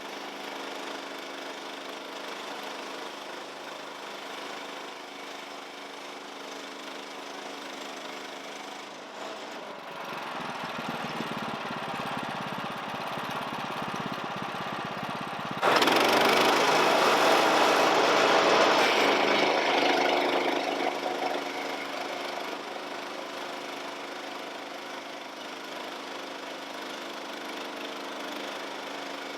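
Small gasoline engine of a portable sawmill running steadily. It picks up somewhat about a third of the way in, then an abrupt much louder stretch of about five seconds begins just past the middle and eases back down to a steady run.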